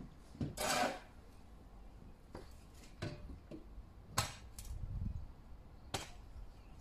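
Wooden bench parts being handled: a brief scrape near the start, then a few sharp, light knocks and clicks spread through, with a low rumble in between.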